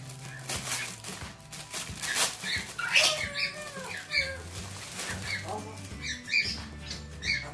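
Clear plastic packaging bag crinkling and rustling as a fabric cushion cover is pulled out of it, with several short high bird-like chirps over it and faint steady background music.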